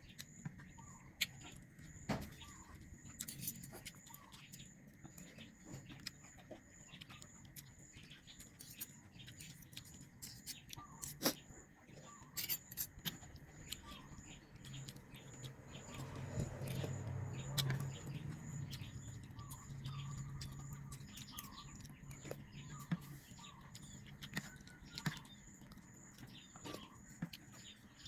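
Close-miked eating of noodles in gravy: wet chewing and mouth clicks with many short sharp clicks, and a louder low stretch about halfway through.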